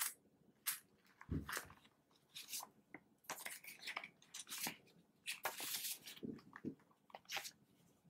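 Close handling of a small L-shaped zip wallet in Nile crocodile leather: banknotes rustle and cards shift as fingers go through its pockets, in irregular short crinkles and clicks, with a soft thump about a second and a half in.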